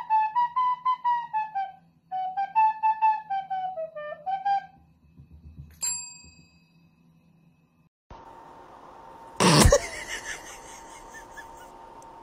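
A short tune played on a flute-like whistle, in two phrases, stops about 4.5 s in. About a second later a metal desk service bell is struck once by a dog's paw and rings on. Later a loud, brief burst of noise sounds over a faint steady hum.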